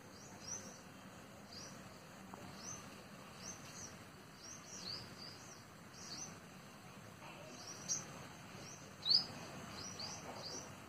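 Bird chirping: short, high, quick chirps repeated about once a second over faint background hiss, the loudest a little before the end.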